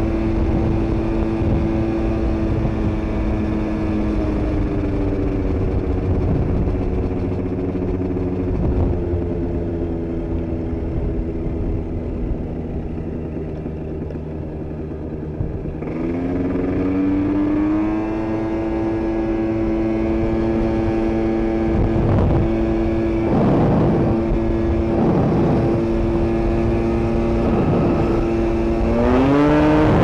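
Two-stroke engine of an Aprilia SR 125 scooter bored out with a Malossi 172 cc kit, heard from the rider's seat while riding. Its note holds, sinks slowly as the scooter eases off from about 4 seconds in, then climbs sharply as it accelerates about 16 seconds in and holds high. It climbs again near the end, with brief rushing noise in the later part.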